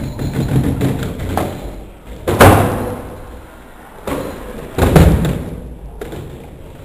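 Two heavy thuds of a skateboard slamming onto the ground, about two and a half seconds apart, slowed down so that each booms deep and dies away slowly, after a low rumble of rolling wheels.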